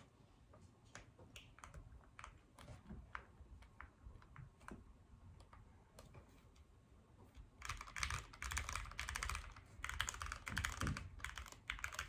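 Keychron Q1 mechanical keyboard with a brass plate, lubed Tealio V2 linear switches and MT3 keycaps being typed on. Scattered single key presses, then fast continuous typing from about seven and a half seconds in, with a short break near ten seconds.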